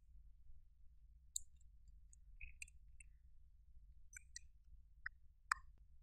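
Light, scattered clicks and taps of a thin metal tool scraping glitter eyeshadow out of a plastic compact and of the plastic compacts being handled, about ten in all, the sharpest about five and a half seconds in.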